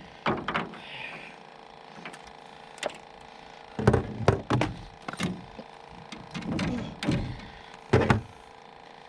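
Irregular knocks and thumps from handling a freshly landed channel catfish, heaviest about four to eight seconds in, over a faint steady hum.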